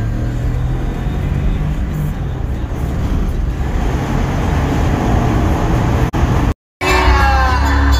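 2019 Ford F-150's V8 pulling under hard acceleration, heard inside the cab along with road noise. About six and a half seconds in, the sound cuts out briefly and music starts.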